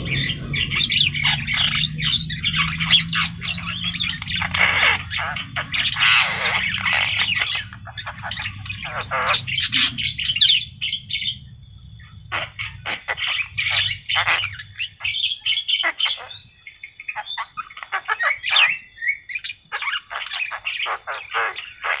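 Javan myna (jalak kebo) singing vigorously in a long, varied run of harsh squawks and chirps. The calls are dense for the first half, then break into shorter separate calls with a thin held note.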